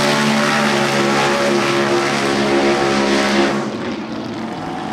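Modified off-road 4x4's engine running at high revs under full throttle as it climbs a steep sand dune, a loud steady drone that drops away about three and a half seconds in as the vehicle pulls up and away.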